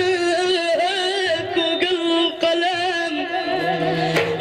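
A maddah singing Islamic praise poetry in a long, ornamented melismatic line, the pitch wavering through held notes.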